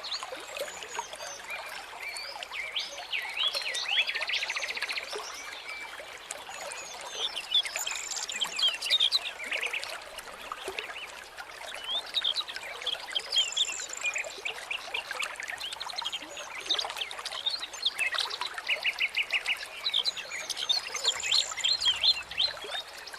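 A chorus of several small birds chirping and singing at once: short whistled notes and quick buzzy trills, over a steady hiss.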